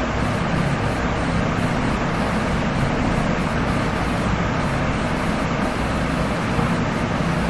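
Steady background hiss with a constant low hum underneath. There are no distinct events.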